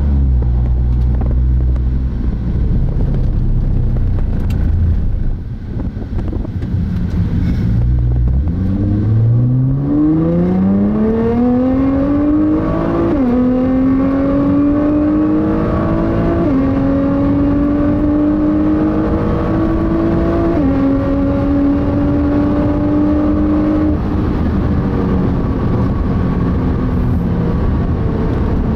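Nissan GT-R SpecV's twin-turbo V6 heard from inside the cabin, running at low revs at first, then accelerating hard with the pitch climbing steadily. Three quick upshifts follow, each a sudden drop in pitch. It eases off near the end.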